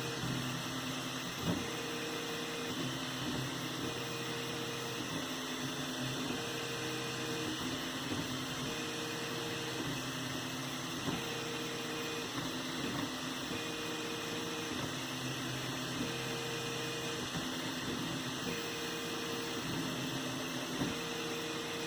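3D printer running: steady cooling-fan noise under stepper motors whining in short pitched moves of about a second each, alternating between two notes, with a few light clicks.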